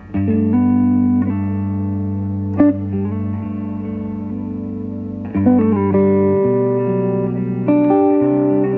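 Background music: a guitar-led instrumental plays sustained chords that change every second or two.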